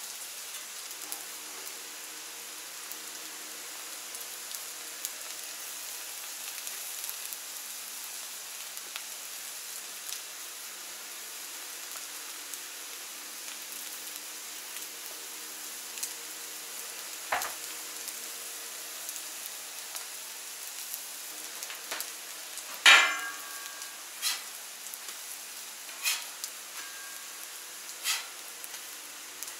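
Bacon, eggs and potatoes sizzling steadily on a Camp Chef FTG600 steel flat-top griddle. A few sharp clicks of a metal spatula against the griddle top come in the second half, the loudest about two-thirds of the way through, with a brief ring.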